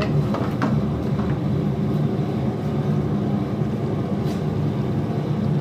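Steady low rumble of the kitchen, with a few light scrapes of a wooden spatula stirring meat in a karahi.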